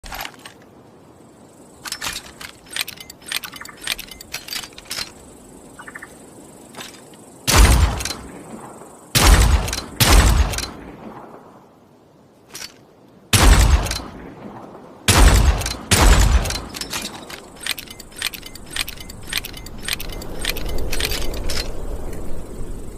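A .38 revolver fired about six times, in loud sharp shots with a short echoing tail, spaced one to three seconds apart. Before and after the shots come runs of sharp clicks from handling the revolver.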